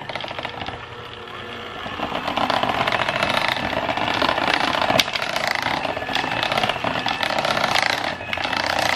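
Electric hand mixer running in a bowl of muffin batter, beating in the dry ingredients; it gets louder about two seconds in and then runs steadily.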